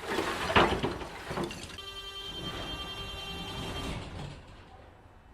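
Doors of a metro or tram train: a noisy clunk of moving doors, then a steady buzzing warning tone for about two seconds that signals the doors are closing.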